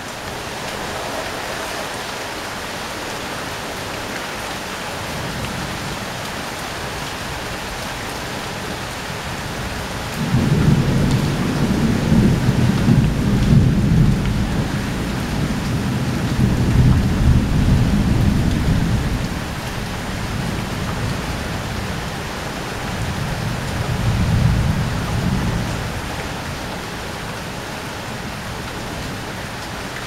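Steady rain falling on a corrugated roof. About ten seconds in, a long low rumble of thunder rises over the rain for around nine seconds, and a shorter rumble follows a few seconds later.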